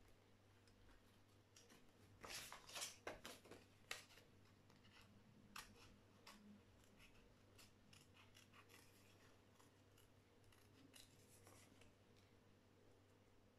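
Near silence: faint small clicks and scrapes from handling makeup tools, busiest about two to four seconds in, over a low steady hum.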